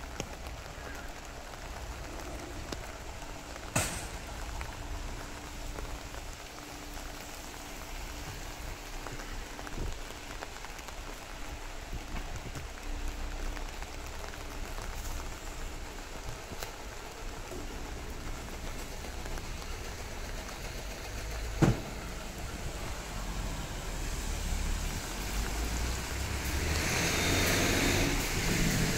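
Steady rain falling, an even hiss throughout. Two sharp knocks stand out, about 4 seconds in and about 22 seconds in, the second the louder, and a louder hiss swells up near the end.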